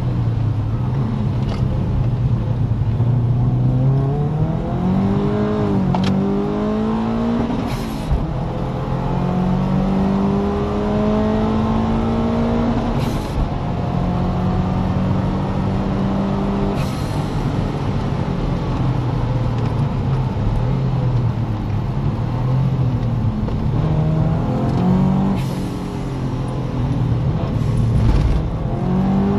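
Car engine heard from inside the cabin, pulling hard through the gears: the note rises, breaks at each upshift every four to five seconds, and climbs again. Later it drops and settles as the car brakes and changes down for a corner.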